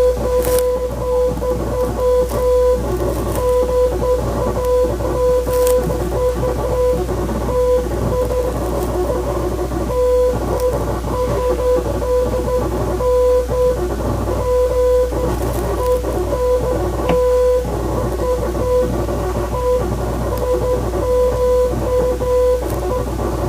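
Morse code beeps: a single steady mid-pitched tone keyed into short dots and longer dashes, playing over background guitar music. The uploader says the code decodes into a Hebrew message.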